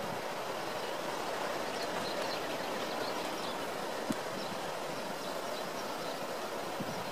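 Steady roar of ocean surf breaking below a sea cliff, with faint high chirps scattered over it and a single small click about four seconds in.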